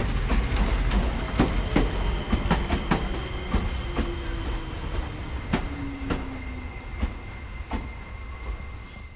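Seibu Railway electric train rolling out across the depot's yard tracks under a low rumble, its wheels clacking irregularly over rail joints and points, with steady high-pitched tones above. The sound fades over the last few seconds as the train moves away.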